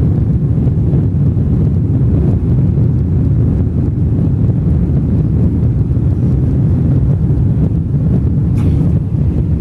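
Steady low rumble of a Boeing 777-300 in flight, engine and airflow noise heard inside the cabin at a window seat.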